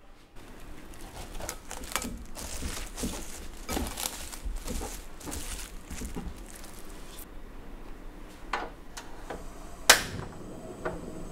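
Plastic cling film being pulled and stretched over a glass bowl, crinkling with many small crackles for about seven seconds. A couple of clicks follow, then a single sharp knock near the end as a frying pan is set on the stove.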